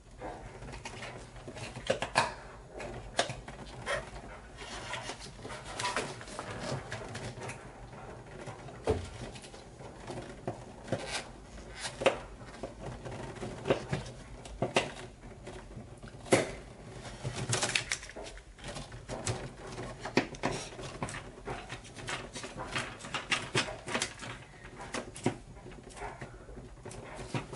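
Irregular clicks, taps and scrapes of a screwdriver and stiff copper wire against the steel breaker panel as a ground wire is screwed down under the ground bar.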